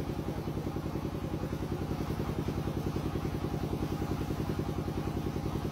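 An engine running steadily, with a rapid even pulse of about ten beats a second.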